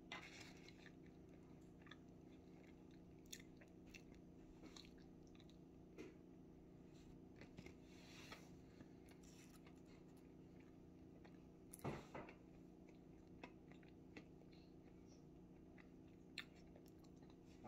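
Faint chewing of a bite of chocolate chip toaster pastry, with scattered small mouth clicks and smacks, a louder cluster about twelve seconds in, over a steady low room hum.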